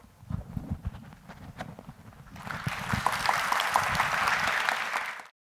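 Audience applauding, setting in about two and a half seconds in as a dense patter of claps and cutting off abruptly near the end. Before it come a few low thumps.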